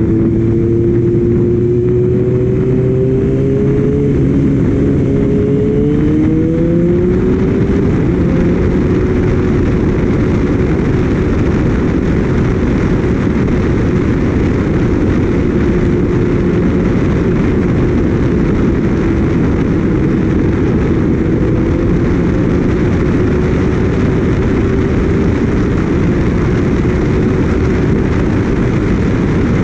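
Kawasaki Ninja ZX-6R inline-four engine pulling, its note climbing over the first several seconds, then holding steady at cruising speed. Heavy wind rush on the microphone is mixed in with the engine.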